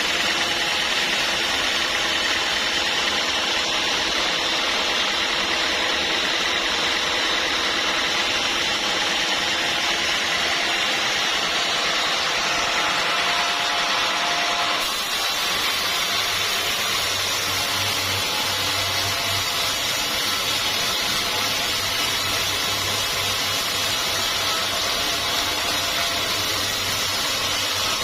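Sawmill saw running steadily through a teak log, with a steady machine sound that changes abruptly about halfway through.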